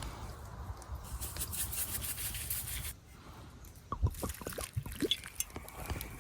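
Venison sizzling and crackling in a cast iron skillet over an open fire, cutting off suddenly about halfway through, followed by a few sharp knocks and scrapes against the pan.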